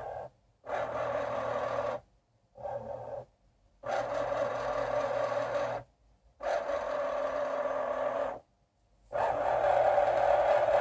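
Excalibur Phantom Force chess computer's under-board piece-moving mechanism running in five stop-start runs of one to two seconds each, with short silent pauses between them, as it slides its pieces across the board.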